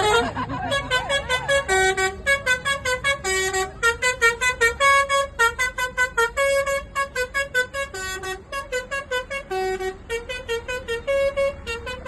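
Basuri multi-tone 'telolet' bus horn playing a fast tune of short blasts, about four or five a second, hopping between a few pitches.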